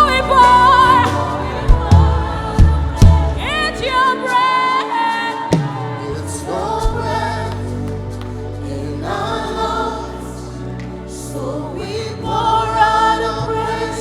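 Live gospel worship music: a choir singing held notes with vibrato over a band with bass and drums, with a few sharp drum hits about two seconds in.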